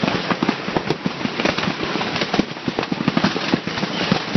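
Large hailstones, gobstopper-sized, pelting down in a dense, irregular clatter of sharp impacts.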